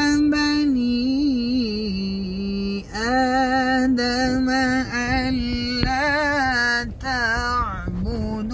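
A man reciting the Quran in melodic tajweed style, drawing out long ornamented notes that waver and glide in pitch, with brief breaths about three, five and seven seconds in. A low rumble of road noise from the moving car sits underneath, heard inside the cabin.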